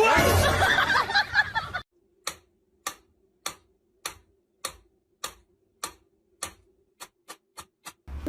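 Clock ticking, about one tick every 0.6 s at first, then speeding up near the end. It follows a loud jumble of sound in the first couple of seconds.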